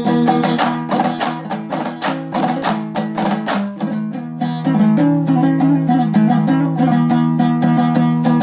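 Instrumental break in a Hazaragi folk song: a plucked string instrument picked in fast, even strokes over a sustained low drone, with no singing.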